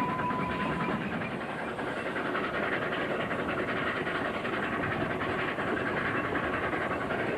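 Narrow-gauge steam train running, heard from an open carriage window: a steady din of wheels on the rails and the locomotive's steam exhaust. A held steam-whistle note ends about a second in.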